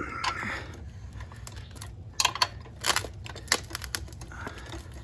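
Wrench working on the bar bolt of a mini trencher, giving a few scattered metal clicks and clinks from about two seconds in as the bolt is tightened to take up slack in the digging chain.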